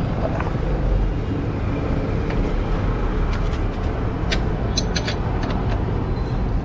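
Steady road-traffic rumble, with a few short sharp clicks about four to five seconds in.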